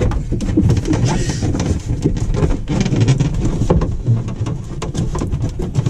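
Handling noise as a corrugated plastic waste hose and its rubber connector are worked onto a basin waste outlet: rubbing, creaking and squeaking of plastic and rubber, with frequent small knocks and a heavy rumble.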